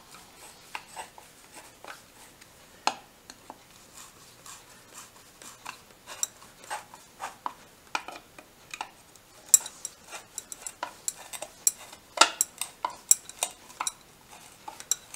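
Small steel screws and a screwdriver clicking and clinking against a motorcycle gearbox casing as the cover screws are put in and tightened. The clicks are irregular and come thicker and louder in the second half.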